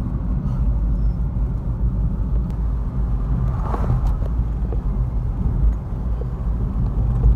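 A car driving along a road, heard from inside the cabin: a steady low rumble of engine and tyre noise.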